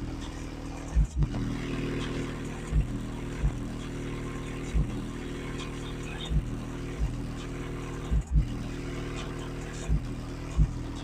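Car subwoofer, a 15-inch Machete Sport M15, playing a bass-heavy track: short, hard deep bass hits every second or so over a steady low drone.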